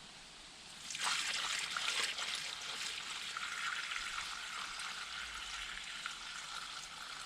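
Water poured steadily into a container of clay for a clay-and-straw stove mix: a hissing trickle that starts suddenly about a second in and slowly tails off.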